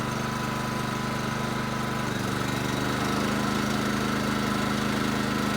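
Champion open-frame inverter generator's engine running steadily. About two seconds in, its pitch shifts and it gets a little louder as it picks up speed to carry the load of a roughly 1500-watt heat gun.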